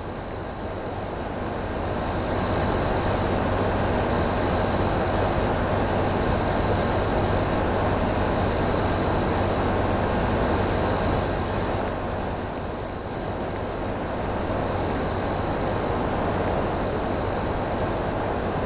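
Air conditioner running: a steady rush of blown air over a low hum, with a faint high whine, dipping briefly about twelve seconds in.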